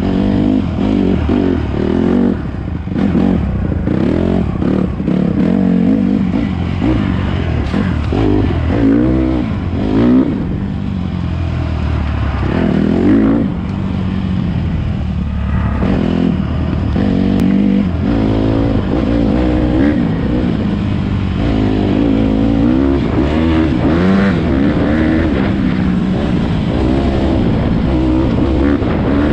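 Honda CRF150RB pit bike's 150cc four-stroke single-cylinder engine revving hard and easing off again and again as the rider works the throttle through the trail. It briefly drops off about halfway before climbing again.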